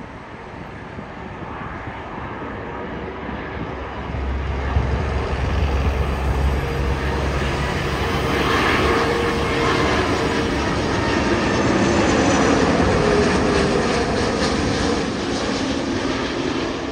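Jet engines of a China Eastern Airbus A330 on final approach with its landing gear down. The engine noise swells as the airliner comes in low overhead and eases slightly near the end.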